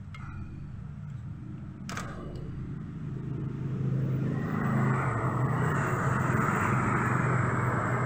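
A car engine running steadily, growing louder about four seconds in, with a single sharp click about two seconds in.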